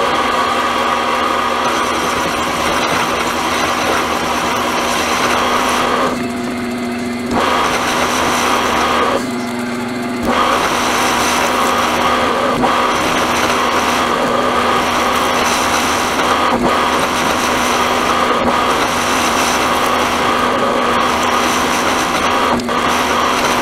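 Milling machine spindle running with a boring head, boring out a large hole in a metal plate: a steady motor hum under a harsh cutting noise, which drops back twice for about a second partway through.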